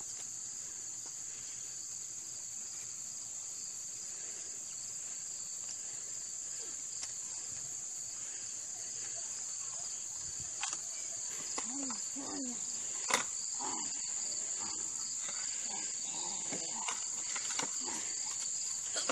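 Steady high-pitched insect chorus droning without a break. A few faint clicks and knocks come in the second half, the sharpest about thirteen seconds in.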